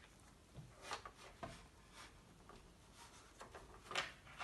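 A few faint clicks and rubs of dry-erase marker pens being handled and set into the plastic pen cup of a children's whiteboard easel.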